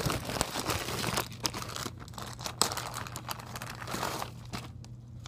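Plastic packaging crinkling and rustling close to the microphone in irregular crackles that thin out near the end, over a steady low hum.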